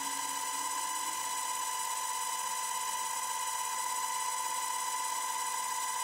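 DIY micro lathe built from a CNC rotational axis, its motor-driven spindle running at steady speed with a constant high whine and fainter higher tones above it.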